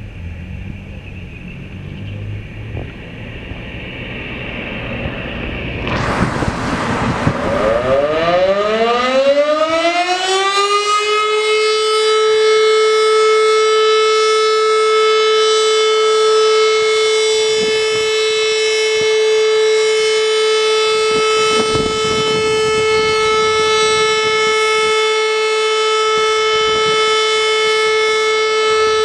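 Volunteer fire station's roof-mounted siren winding up: its pitch rises for several seconds, then about eleven seconds in it settles into one steady, loud held tone.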